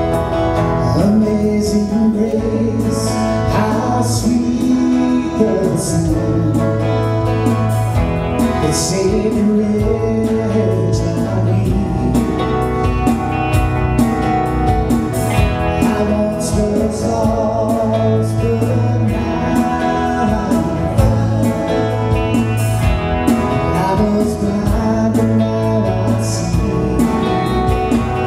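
Live worship band playing: acoustic guitars strumming over electric bass and a drum kit, with cymbal crashes every few seconds. A man's voice sings over the band.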